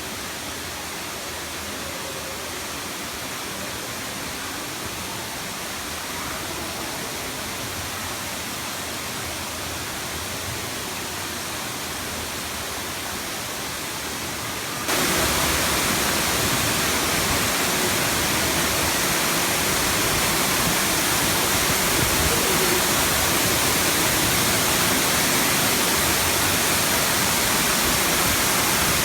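Waterfall: a steady rush of falling water, which jumps suddenly louder about halfway through.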